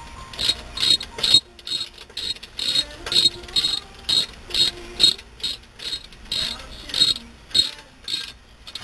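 Socket ratchet wrench clicking in short bursts about twice a second as it is swung back and forth, snugging a bolt on a rear brake caliper.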